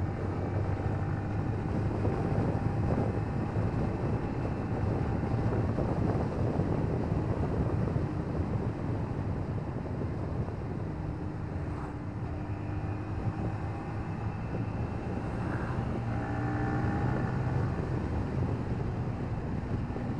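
Yamaha Vixion R's 155 cc single-cylinder engine running steadily at cruising speed, with wind rushing over the microphone.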